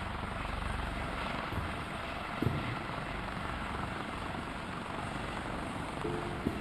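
Helicopter running steadily, a continuous engine and rotor noise, with a brief knock about two and a half seconds in. Music notes come in near the end.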